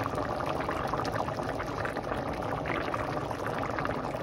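A pot of beans in thick tomato sauce boiling hard, with steady bubbling and many small pops as bubbles burst at the surface.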